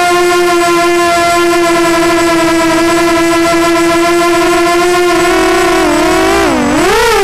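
Walkera Runner 250 Advance quadcopter's brushless motors whining at a steady pitch, close to the onboard camera's microphone. Near the end the pitch dips and swings back up as the motors slow and speed up again.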